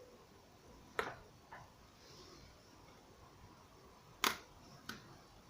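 Four sharp clicks and taps from small objects being handled on a work surface, the loudest about four seconds in.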